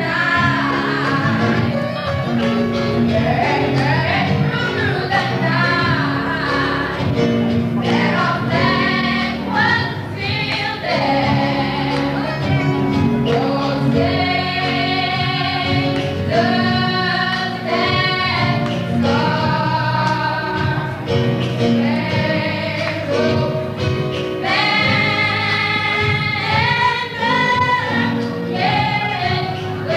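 A choir singing a gospel song with accompaniment, in long, held notes that waver in pitch.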